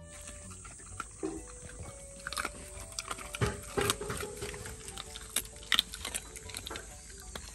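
A pet chewing raw chicken, with irregular wet crunches and snaps, loudest about halfway through.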